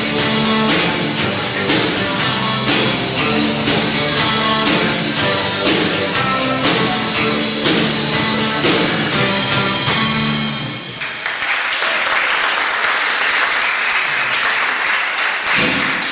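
Live band playing a rock song with electric guitar, bass guitar and drum kit, keeping a steady beat. About eleven seconds in the song ends and the audience applauds.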